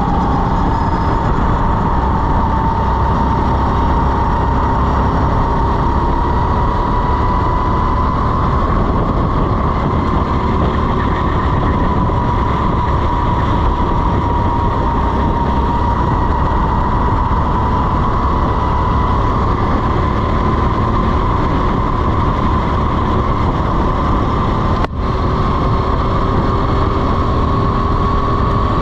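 Racing kart's small single-cylinder engine held at high revs under throttle. It is a steady drone whose pitch drifts slowly up and down through the corners, with wind rumble on the kart-mounted camera's microphone. There is a brief drop-out about 25 seconds in.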